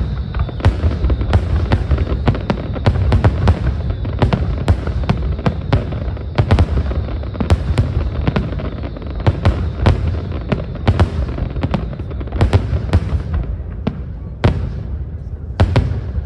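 Fireworks display at full intensity: a dense barrage of sharp cracks and booms, several a second, over a continuous low rumble of shell bursts.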